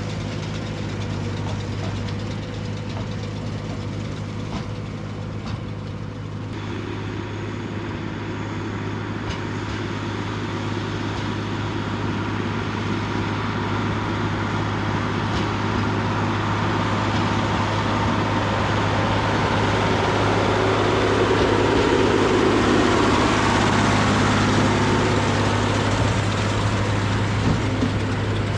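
Deutz D130 06 tractor's diesel engine running steadily while pulling a John Deere 566 round baler, getting gradually louder through the middle and peaking near the end.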